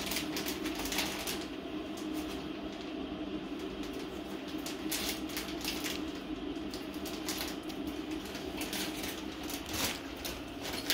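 Clear plastic packaging crinkling and crackling in irregular bursts as it is handled and pulled open to free a vibraslap.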